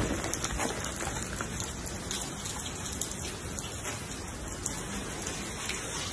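Steady rain falling on wet paving, with scattered drop ticks.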